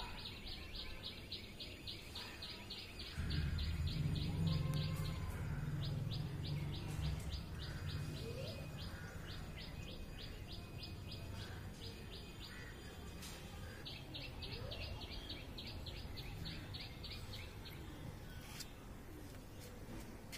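A bird calling in a fast, even series of high chirps, about five a second, with two pauses. A low rumble comes in suddenly about three seconds in and fades over several seconds.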